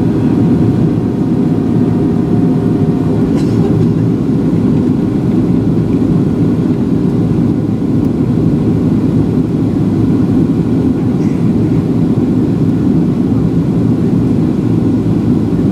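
Steady low rumble of engine and airflow noise inside the cabin of a Boeing 737-700 airliner in flight, on descent toward landing.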